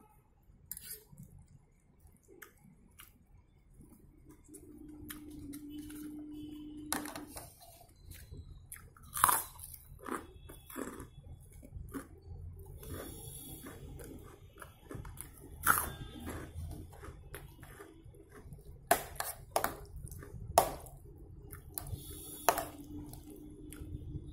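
Close-up chewing and mouth sounds of a person eating soft baked eggplant casserole, with a few sharp clicks of a knife and fork against the plate.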